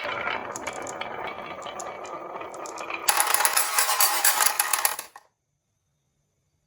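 Marbles rolling and clattering down a wooden marble run, a dense run of small clicks. About three seconds in the clatter grows louder and sharper, and it cuts off suddenly about two seconds later.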